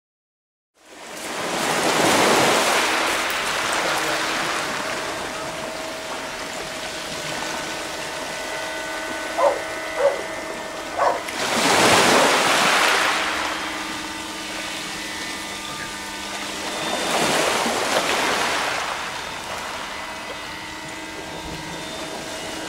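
Small waves breaking and washing over a pebble shore, beginning about a second in and swelling three times. Faint steady tones sit underneath, and three short pitched blips come a little before the second swell.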